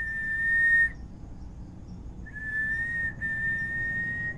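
Train horn blowing a steady high note in long blasts: one ends about a second in, and another starts about two seconds in, broken once briefly.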